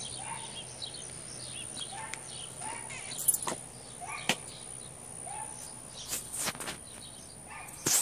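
Small birds chirping faintly in the background over a thin, steady high tone, with several brief sharp swishes and knocks, the loudest two about six seconds in and near the end.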